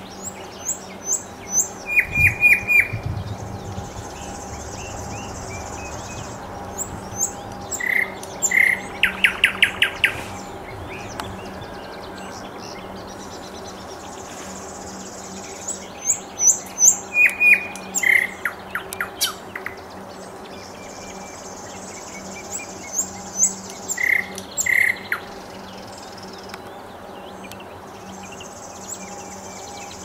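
Nightingale singing four phrases with pauses between them: clear repeated whistles and fast rattling trills. Fainter high chirps from other small birds run through it, over a faint steady hum.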